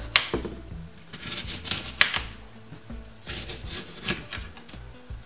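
Knife knocking on a cutting board as fruit is cut: three sharp knocks, about two seconds apart, with clusters of quicker light clicks between them.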